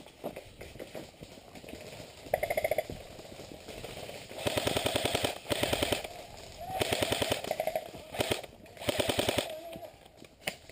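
Airsoft guns firing rapid full-auto bursts: a short burst about two seconds in, then several longer bursts of one to two seconds each in the second half.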